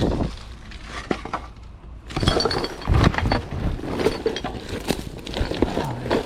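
Empty glass wine bottles clinking and knocking against each other as they are picked up and dropped together. A few scattered clinks at first, then a dense jumble of clinks and knocks from about two seconds in.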